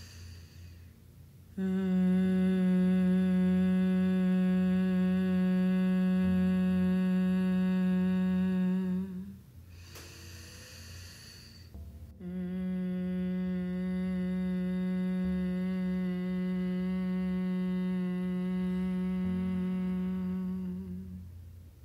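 A woman's steady closed-mouth hum on the out-breath: Bhramari (humming bee) breath. The hum holds one pitch for about eight seconds, there is a short breath in, and then a second hum runs for about nine seconds.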